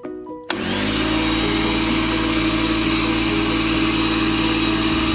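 Stanley air compressor starting abruptly about half a second in, then running steadily and loudly with a constant motor and pump pitch and a hiss.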